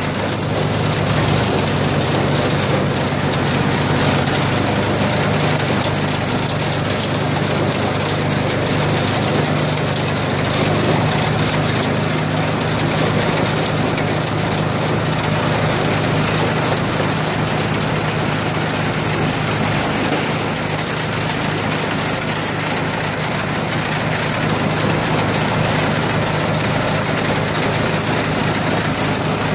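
Steady, continuous engine noise from a homemade firewood processor's hydraulic power unit running, with a Kubota tractor's diesel engine running alongside; a low hum holds throughout with no distinct knocks or cuts.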